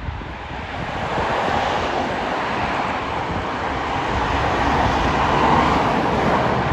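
Freight train rolling past: a steady rushing noise of wheels on rail that swells and peaks about five to six seconds in.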